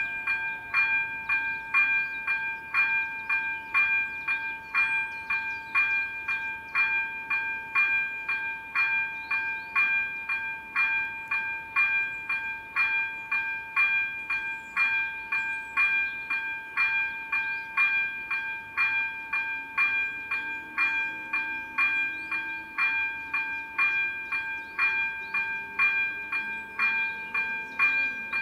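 Electronic level-crossing bell (AŽD ZV-02) ringing steadily at about two chimes a second: the crossing's warning that a train is approaching.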